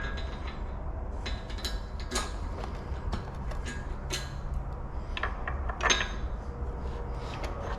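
Metal tools and parts being handled on a workbench: scattered clinks and knocks, a louder knock about six seconds in, over a steady low hum.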